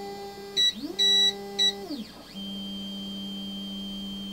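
Voxelab Proxima 6 resin printer's Z-axis stepper motor whining steadily as it drives the build plate to its home position. Its pitch sweeps up and back down near the start and then settles lower. Three short electronic beeps sound in the first two seconds and are the loudest thing.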